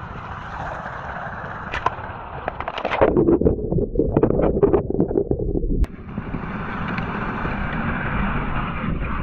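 Hot Wheels die-cast cars rolling on plastic track through sprinkler spray. About three seconds in the sound turns muffled and bubbly as the microphone plunges underwater with the cars. It cuts off suddenly near six seconds to a steady rumble of many die-cast cars rolling down the track.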